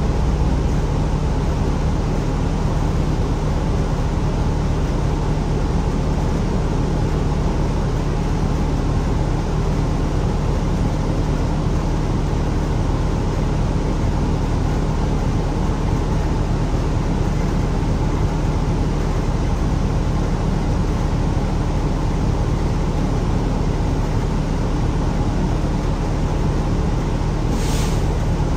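City bus running with a steady engine and road hum, holding an even level with no change in pitch. A short, sharp hiss sounds near the end.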